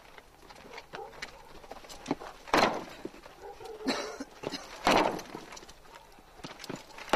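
Two loud knocks or thumps about two seconds apart, with lighter clicks and knocks around them.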